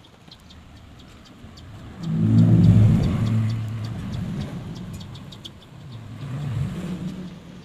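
A motor vehicle engine going by, rising sharply about two seconds in and fading, then swelling again briefly near the end.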